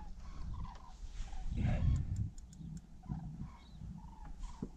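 A fishing reel being wound in short repeated turns while a carp is played on a bent rod from a small boat. Wind and water rumble underneath, with a louder low rush about a second and a half in and a few sharp clicks.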